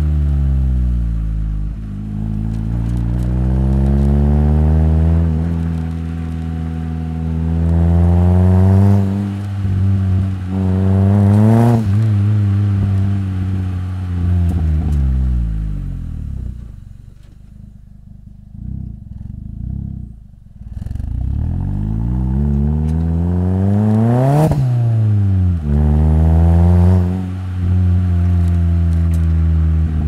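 Mitsubishi Colt CZT's turbocharged 1.5-litre four-cylinder, heard at the exhaust, pulling up through the revs several times, each time falling away again. About two-thirds through it drops to a quiet low hum for a few seconds, then rises sharply and falls once before pulling again.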